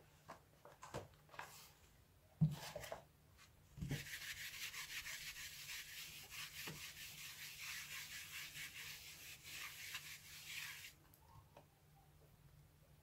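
Whiteboard eraser rubbing across a whiteboard in a steady dry hiss for about seven seconds, wiping the board clean. A couple of short knocks come in the first few seconds before the wiping.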